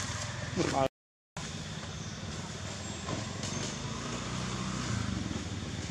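Steady low motor hum, like an engine running nearby, broken by half a second of silence about a second in. Just before the silence there is a short rising squeal.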